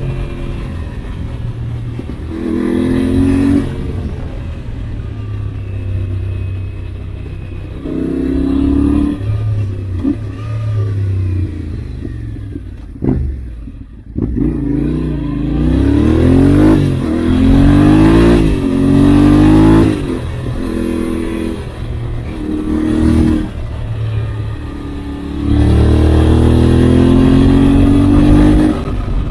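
Yamaha Ténéré 700's CP2 parallel-twin engine under way, its pitch repeatedly rising under throttle and falling as it eases off. About thirteen seconds in the throttle briefly closes and the engine note drops away, then it revs up hard again in a run of climbing pulls.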